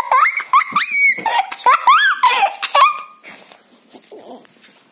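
Young children laughing and squealing with high, gliding cries. It dies down about three seconds in.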